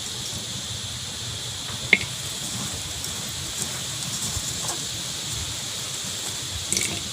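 Potting soil and a plastic pot being handled while a succulent is planted: a few scattered small clicks and taps, the sharpest about two seconds in, over a steady background hiss and low wind rumble.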